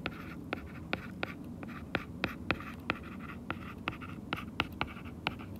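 Hard stylus tip tapping and clicking against an iPad's glass screen during handwriting: a string of light, irregular clicks, about three a second.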